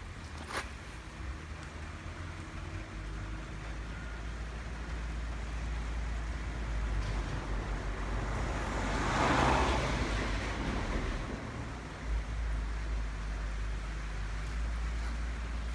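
Honda Benly Pro 50 scooter's single-cylinder four-stroke eSP engine idling with a steady low hum. A louder rushing swell rises and fades over about three seconds midway.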